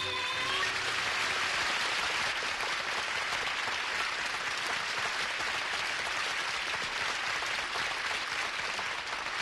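Audience clapping steadily as the last note of a sung musical number dies away just at the start.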